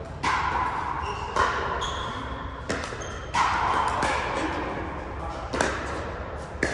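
Pickleball paddles striking plastic balls: about five sharp pops at uneven intervals, each with a ringing tail that echoes around a large indoor hall.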